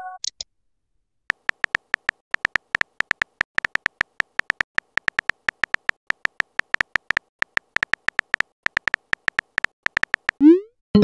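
Simulated phone-keyboard typing sounds: a long, uneven run of short electronic tick-like blips, several a second, one per keystroke as a message is typed. Near the end a short rising pop sounds as the message is sent.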